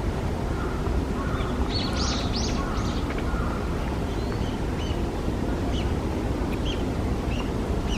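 Chinese hwamei singing: three loud, arching whistled notes about two seconds in, then softer short whistles, over a steady low rumble.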